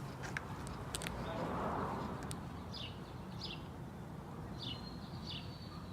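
Birds chirping several times in short calls, over faint clicks and a steady low background hum.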